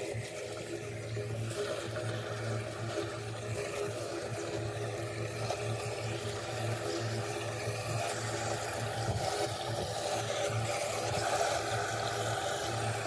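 Floodwater running into a storm drain as debris is cleared from its opening, growing louder in the second half as the water flows through. A steady low mechanical hum, like an idling engine or pump, runs under it.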